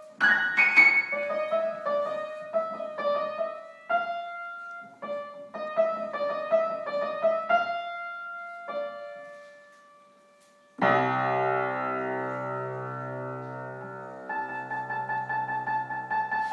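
Grand piano played by hand: a melody of single struck notes, then one note left to fade. About eleven seconds in, a loud full chord with deep bass is struck and held ringing, and quick repeated higher notes are played over it near the end.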